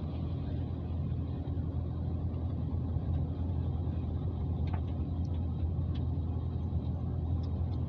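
Road and engine noise heard inside the cabin of a moving car: a steady low rumble, with a few faint ticks about halfway through.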